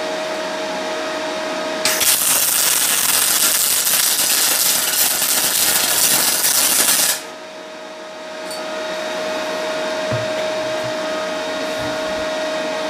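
MIG welding arc on aluminium from a Parkside PMSG200A2 welder: a loud, even hiss that starts about two seconds in and stops abruptly about five seconds later. Before and after the arc, the welder runs with a steady hum and a high, constant whine.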